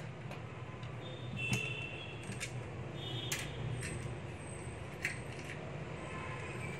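Small 3D-printed plastic parts and a servo linkage arm handled and fitted together: a few light clicks and taps, over a steady low hum.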